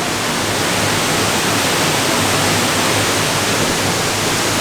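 Loud, steady rush of a waterfall.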